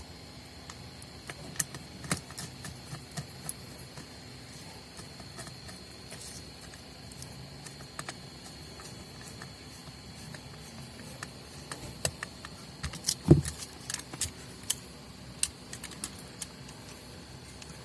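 Scattered light clicks, taps and rattles of an electric sander's plastic and metal parts being handled and fitted back together, with a louder knock about thirteen seconds in. A faint steady high tone runs underneath.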